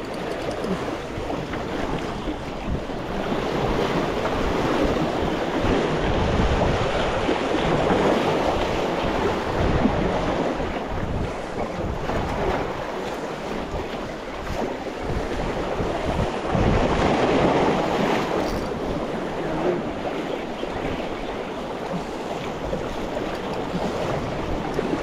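Sea waves washing against concrete breakwater blocks, swelling louder twice, with wind buffeting the microphone in low rumbling gusts.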